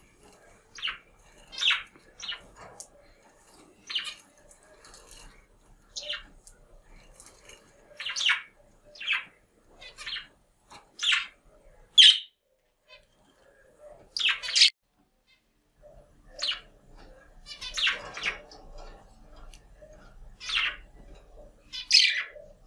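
Budgerigar calling to its reflection in a mirror: short, sharp chirps and squawks about once a second over a soft chattering warble, with a brief pause about two-thirds of the way through.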